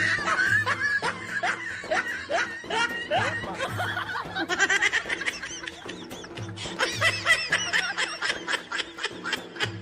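Snickering laughter in quick repeated bursts over background music with a low, pulsing bass beat.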